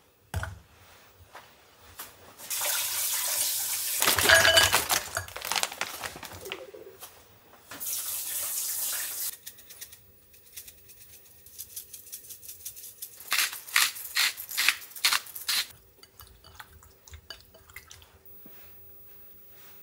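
Raw chicken wing prep: water runs from a tap in bursts for several seconds, then seasoning is shaken from a spice jar in a quick run of rattling taps, followed by faint sounds of the wings being tossed by hand in a glass bowl.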